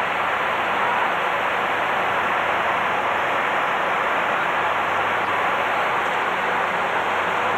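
Steady cabin noise on the flight deck of a USAF KC-135 tanker in flight: an even hiss of airflow and engines that does not change.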